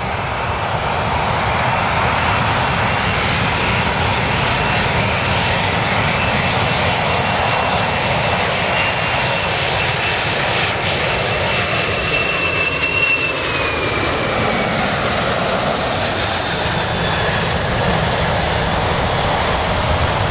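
Boeing 747-400 jetliner on final approach, its four jet engines making a loud, steady roar. A thin high whine in the engine noise drops in pitch about 13 seconds in.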